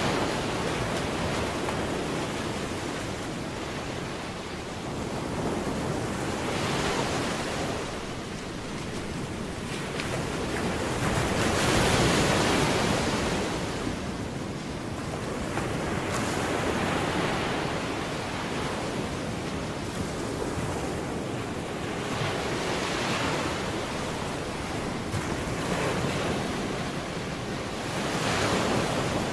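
Ocean surf: waves breaking and washing up on a beach, swelling and fading about every five seconds.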